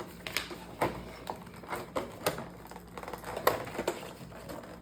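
Irregular sharp taps and clicks of hands handling and working at a toy's boxed packaging.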